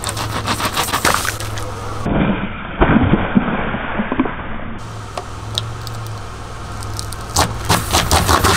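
Car tyre rolling over plastic water bottles, the plastic crackling and popping as it crushes, with a louder crunch about three seconds in as a full bottle splits and water sprays out. The car's engine idles underneath.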